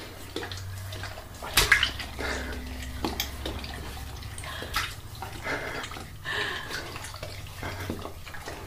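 Bath water splashing and sloshing lightly in a bathtub, with scattered small wet clicks, one sharper splash about a second and a half in, and a steady low hum underneath.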